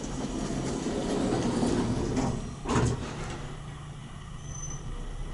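Vintage Otis elevator heard from inside the car as it travels down: a low rumble for the first two seconds or so, a single sharp click a little under three seconds in, then a quieter steady hum.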